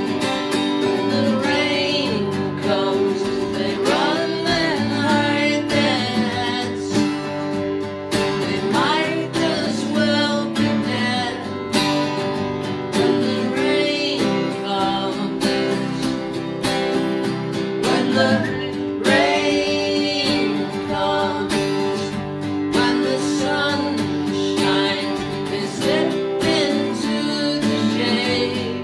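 Three acoustic guitars strummed together in a steady live song, with a man singing over them.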